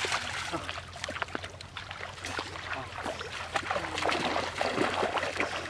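Shallow river water splashing and sloshing around legs wading through it, with many small irregular splashes and drips over a steady low hum.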